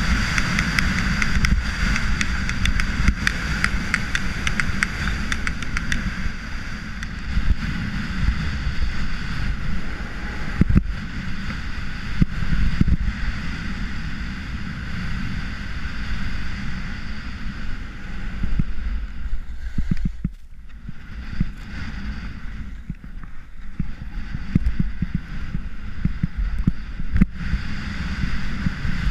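Atomic Crimson skis running fast on packed, groomed snow: a steady scraping hiss from the edges under heavy wind rumble on the microphone. Both ease off briefly about two-thirds of the way through.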